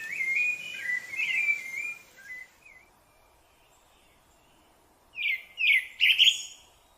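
Rufous-bellied thrush (sabiá-laranjeira) singing: a phrase of whistled notes stepping up and down for about two and a half seconds, a pause, then a louder, shorter phrase of quick falling notes near the end.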